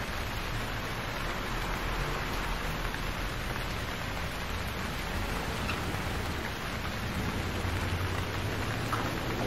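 Steady rain falling on a wet street, an even hiss. Near the end a car passes on the wet road with a low rumble.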